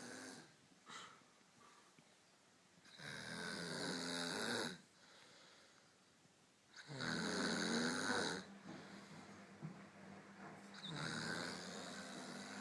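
A drunk woman snoring in her sleep: three loud, rasping snores about four seconds apart, with quieter breathing between them.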